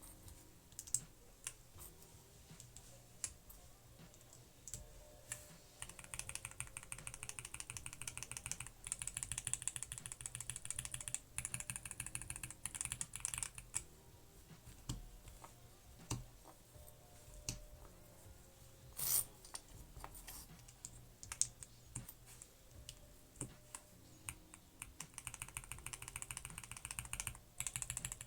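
Typing on a mechanical keyboard with factory-lubed roller linear switches, whose stems ride on ball bearings. Single key presses are followed by a fast run of keystrokes starting about six seconds in, more scattered presses, then another fast run near the end.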